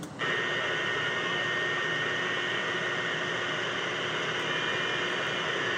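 CB radio receiver, tuned to channel 28, opening with a click and then hissing with band static on an incoming long-distance skip signal, with a steady high whistle riding on the noise.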